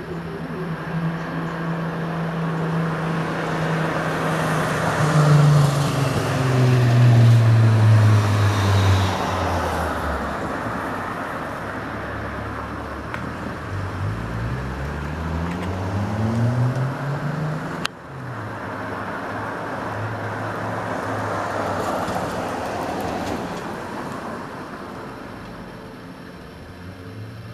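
Engine noise passing by: a deep engine tone falls in pitch as a swell of rushing noise peaks, then a second engine tone climbs in pitch. There is a short click about two-thirds of the way through.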